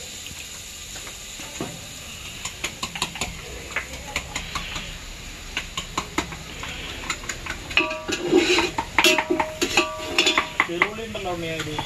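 Onion, garlic and ginger sizzling in hot coconut oil while a spoon stirs and scrapes them around a metal pan, its strokes clicking against the pan. The stirring grows louder and busier about eight seconds in.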